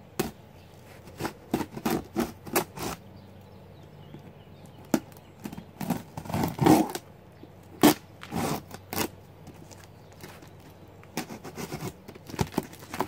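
A blade cutting and scraping along the packing tape of a cardboard shipping box, with sharp clicks and taps on the cardboard between short scratchy rasps.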